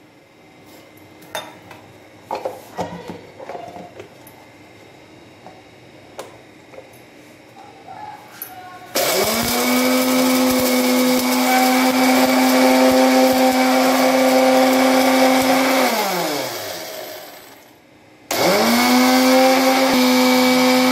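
Electric mixer grinder grinding dry-roasted whole spices. After a few faint knocks, the motor starts suddenly about nine seconds in with a loud steady whine, runs for about seven seconds, winds down with falling pitch, then starts again about two seconds later.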